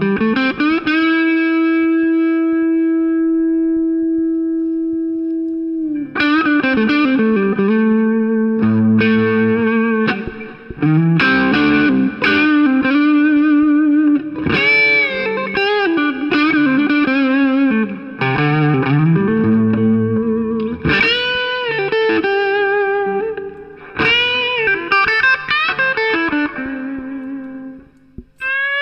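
G&L ASAT Deluxe Tribute electric guitar played lead through an amp. A single note is held for about six seconds, then a melodic line follows with string bends and vibrato.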